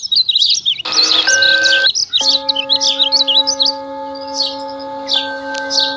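Birds chirping throughout, over struck bell tones. One bell tone rings out about a second in and cuts off abruptly. A second, lower bell tone starts at about two seconds and rings on steadily.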